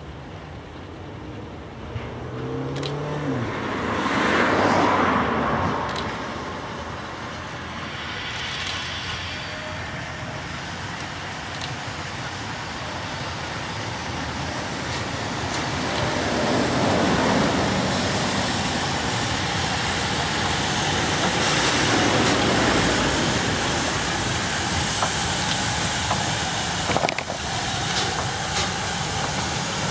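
Road traffic: vehicles pass one after another over a steady rumble, with three swells, the loudest about four seconds in.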